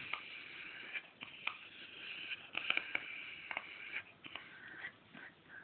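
Small dog whining and grumbling in thin, drawn-out high-pitched tones that waver and shift in pitch, the 'talking' noises it makes while being stroked on the belly, with soft clicks and rustles of handling.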